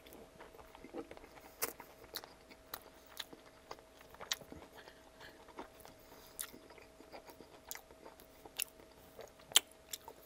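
Close-miked chewing of a mouthful of pasta with crispy breaded chicken cutlet and a whole pepperoncini: wet mouth sounds with short sharp crunches and clicks scattered through, one louder crunch near the end.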